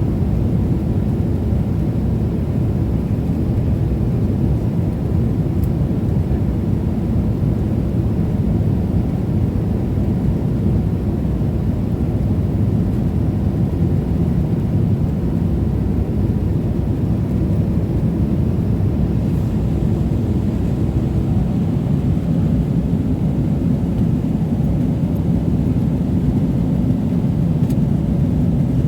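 Steady low rumble of a Boeing 777-300ER as heard from inside the passenger cabin, even and unbroken.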